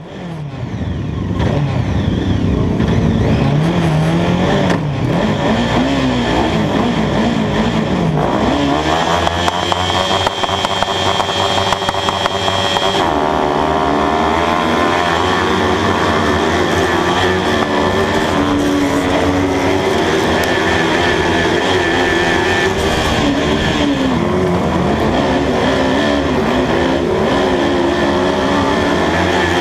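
Onboard sound of a kart cross racer's Honda CB500 motorcycle engine at racing speed, revving up and falling back again and again through gear changes and throttle lifts. The sound fades in over the first second or two.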